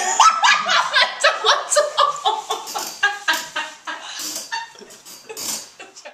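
A person laughing: rapid ha-ha pulses, loud at first and trailing off, cut off abruptly at the end.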